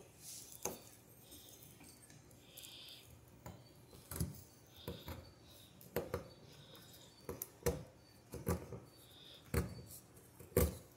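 Serrated butter knife being sharpened by hand: irregular light metallic scrapes and clicks of the blade against the sharpener, about one a second and closer together from about four seconds in, the sharpest near the end.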